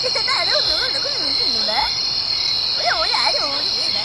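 Night-time chorus: crickets or other insects trilling steadily and high, with frogs calling over them in wavering, rising-and-falling notes that come in groups.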